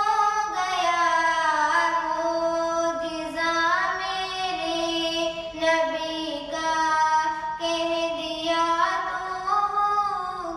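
A young girl singing a naat, an Urdu devotional song in praise of the Prophet, into a microphone: a single voice holding long notes with sliding, ornamented turns between them.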